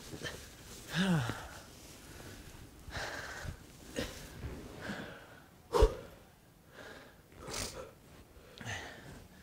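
A man breathing hard and grunting with effort, with a falling groan about a second in and breathy gasps through the rest. A single sharp thud about six seconds in is the loudest sound.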